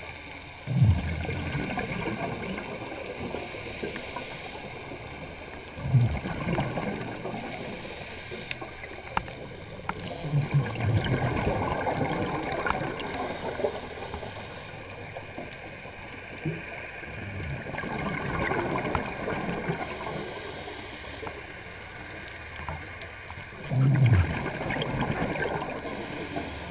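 A scuba diver breathing underwater through a regulator. Each exhale is a burst of bubbling exhaust that starts with a low thump, five times; between them comes a fainter hiss from the inhales.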